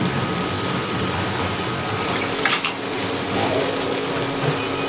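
Chopped pork intestines sizzling steadily in hot oil in a frying pan as they stir-fry, with a brief click about halfway through.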